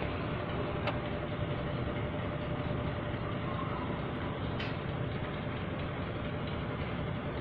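Steady background rumble and hiss with a faint hum, broken by two brief clicks, one about a second in and one a little past halfway.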